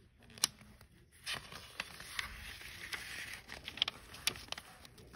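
Paper rustling as a page of a comic digest is turned and the book is handled, with a few sharp clicks from fingers on the paper.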